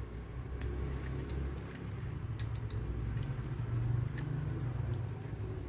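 Soft wet squishing of hands rubbing a curd-and-lemon spice paste onto boneless chicken breast pieces, with a few faint clicks over a steady low hum.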